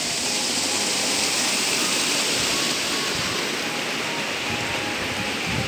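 Steady rushing of water from a rocky mountain stream, an even noise with no break.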